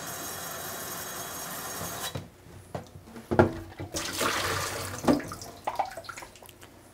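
Tap water running through a hose into a film developing tank, a steady rush that drops away sharply about two seconds in. After that come a few hollow knocks from the tank being handled in the sink, the loudest about a second later, and a brief splash of water.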